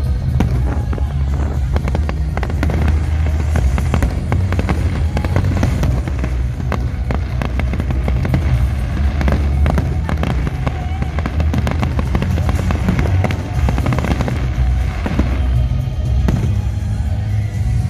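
Aerial fireworks display: shells launching and bursting overhead in quick succession, many bangs and crackles running together, with music playing alongside.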